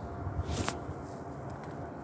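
Freight train running past at a distance, a steady rumble with a faint steady tone through it, and a single short sharp click about half a second in.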